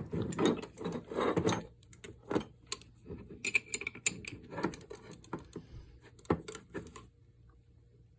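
Metal tools and spray-gun parts clinking and scraping as the gun's fluid nozzle is worked loose with a wrench. The busiest handling is in the first second and a half, with scattered clicks after and a brief metallic ring about three and a half seconds in.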